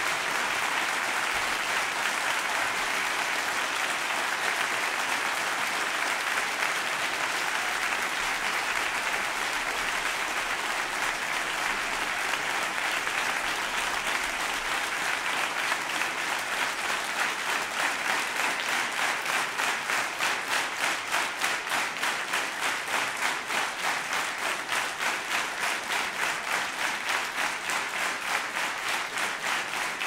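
Concert audience applauding after a song. About halfway through, the clapping settles into a steady rhythmic clapping in unison, roughly two to three claps a second.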